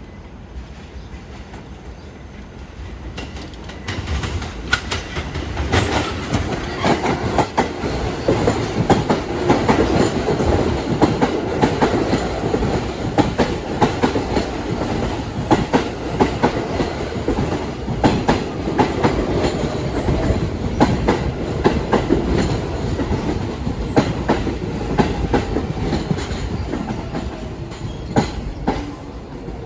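New York City subway train passing, its wheels clacking over rail joints: the sound builds about four seconds in, stays loud with rapid clicks, and eases near the end with a falling whine.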